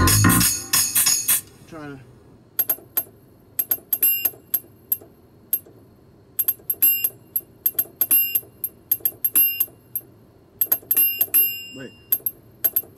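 Synthesizer keyboard playing a metallic, bell-like percussion sound: short sharp hits in an uneven, stop-start rhythm, each with a brief high ring. This is a part being tried out by hand. In the first second and a half, louder full music plays and then cuts off.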